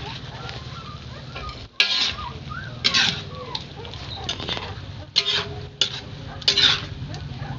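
Metal spatula scraping and turning chicken pieces in a metal wok, in several short loud scrapes a second or so apart, over a low steady hum.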